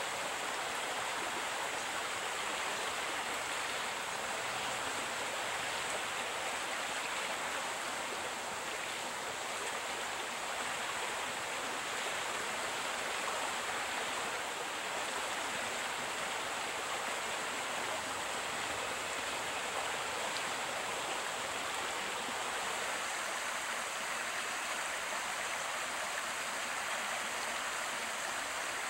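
Creek water running: a steady, even rush of flowing water with no breaks.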